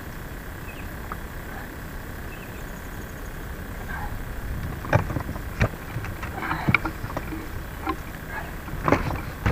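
Knocks and thumps on a small boat's deck as an angler shifts his feet and gear while fighting a fish. There is a steady low rumble underneath, and the sharp knocks come only in the second half, the loudest about five seconds in and again near the end.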